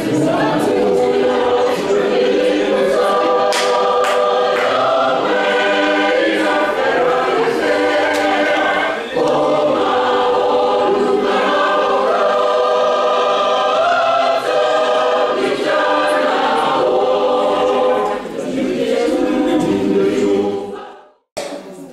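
Mixed men's and women's church choir singing in harmony on long held notes. The singing cuts off suddenly near the end.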